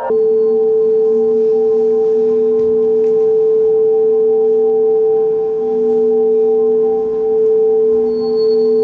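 Ambient drone music for the dance: one steady, ringing held tone with fainter higher tones over it and a lower tone that wavers in and out, swelling gently now and then.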